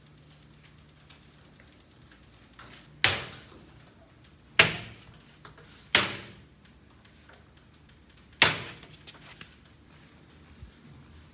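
Four sharp bangs, each dying away quickly, the first three about a second and a half apart and the last after a longer gap.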